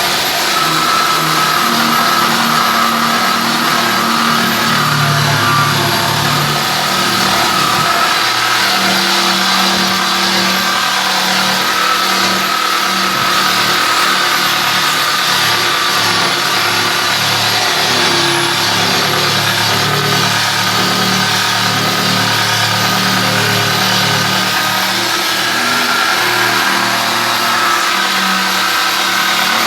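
Electric drill running steadily with a wire brush, scouring rust and old paint off the steel of a tractor link box, with a steady high motor whine over the scratchy brushing.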